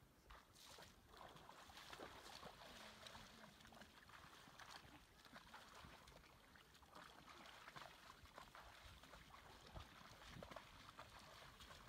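Faint splashing and sloshing of a moose's legs wading slowly through shallow lake water, heard as many small scattered splashes over a quiet background.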